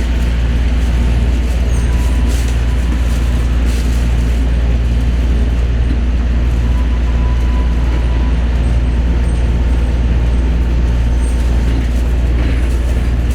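Cabin running noise of an Osaka Monorail 3000 series train underway on its guideway: a steady low rumble and hum, with a faint thin whine for several seconds in the middle.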